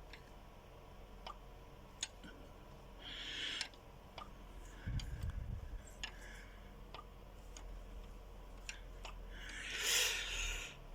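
Faint, irregular metallic clicks and ticks as a Chevrolet Cruze F18D4 VVT cam phaser is pressed and rocked by hand. The clicking is the phaser moving on its play, the worn coupling behind the engine's knock. There are a few short rustles and a soft thump in between.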